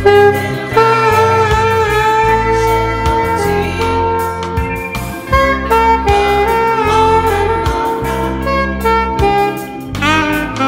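Alto saxophone playing a melodic line of held and moving notes over a backing track with a steady bass line.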